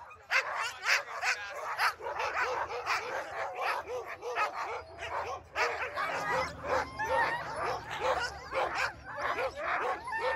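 A team of sled dogs barking and yelping without a break, many short, high calls overlapping.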